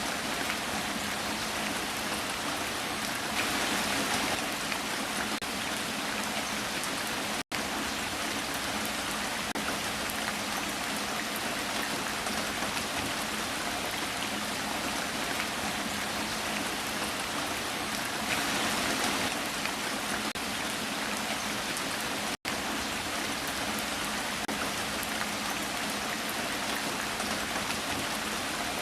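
Steady heavy rain falling, an even hiss of drops that swells briefly twice. Two split-second gaps break the sound.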